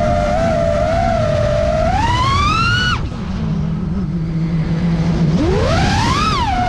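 FPV quadcopter motors whining as the pilot works the throttle. The pitch wavers, climbs about two seconds in and cuts off sharply near three seconds as the throttle is chopped, drops to a low hum, then climbs steeply again near the end.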